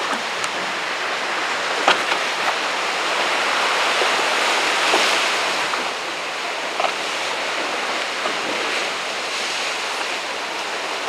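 Sea surf breaking and washing against a rocky shore: a steady rushing wash that swells a little about halfway through, with a few faint short clicks.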